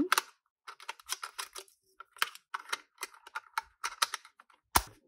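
Irregular plastic clicks and taps as a battery cover is fitted into place on the back of a plastic desk calculator, with one sharper, louder click near the end.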